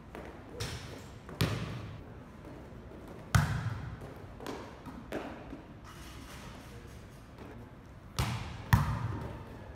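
Volleyball being struck by hand in a setting drill: a series of sharp, echoing smacks of hands on the ball, a second or more apart, the loudest a little over three seconds in, with two close together near the end.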